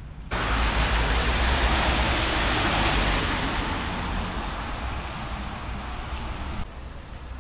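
Rushing hiss of car tyres on a wet road, with a low wind rumble on the microphone. It starts suddenly just after the beginning, swells, eases off gradually and cuts off sharply near the end.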